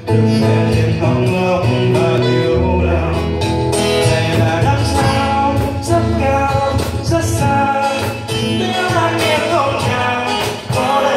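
Live acoustic performance: a male singer singing into a microphone, accompanied by acoustic guitar.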